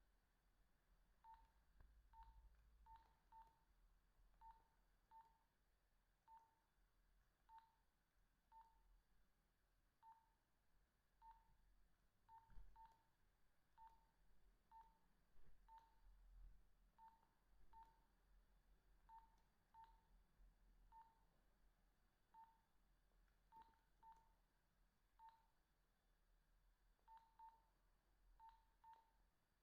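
Nokia 2110i keypad beeps as its buttons are pressed to browse the menus: short, faint beeps all at the same pitch, each with a light key click, coming irregularly about once a second and sometimes in quick pairs.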